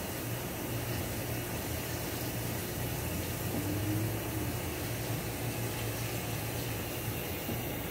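Steady low mechanical hum with a constant hiss behind it, unchanging throughout.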